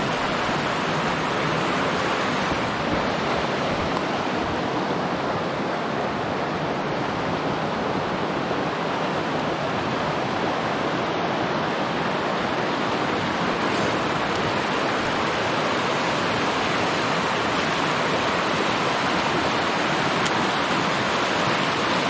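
Fast mountain creek rushing over rocks and logs: a steady rush of whitewater.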